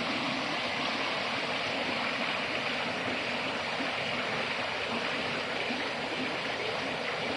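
Steady rush of water from a waterfall and its stream, an even hiss without breaks.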